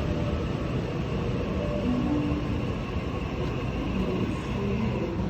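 Train running past with a steady rumble.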